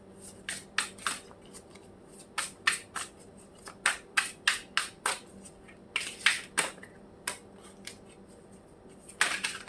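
Tarot cards being shuffled by hand: a run of sharp, irregular slaps and snaps of the cards, about two a second.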